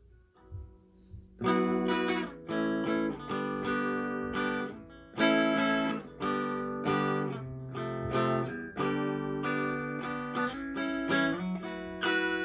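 Electric guitar strumming a run of chords, changing chord about every half second to a second. A few faint notes come first, and the loud strummed chords start about a second and a half in.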